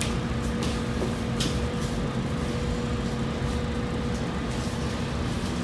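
Steady machine hum of even pitch and level, with a couple of brief soft clicks or rustles in the first second and a half.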